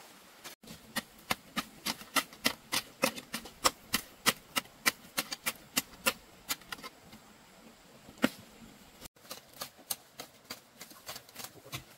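Repeated sharp chopping strikes of a hand tool on wood, about three a second, stopping about seven seconds in; a lighter, quicker run of strikes follows near the end.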